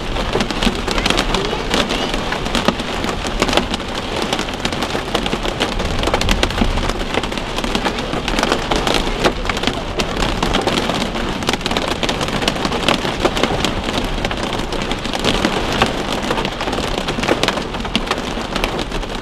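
Heavy rain hitting a car's roof and windshield, heard from inside the cabin as a dense, steady patter of drops.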